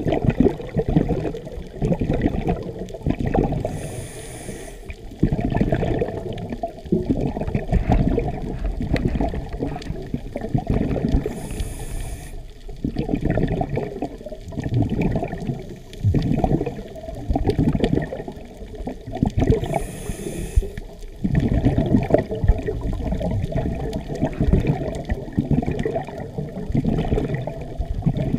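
Scuba regulator breathing picked up through an underwater camera: bubbling, rushing exhalations, with a short hissing inhale about every eight seconds.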